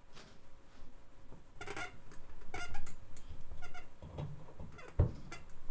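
Three short, high squeaks about a second apart, then low thuds, the sharpest about five seconds in: drum kit hardware being shifted, then the bass drum struck.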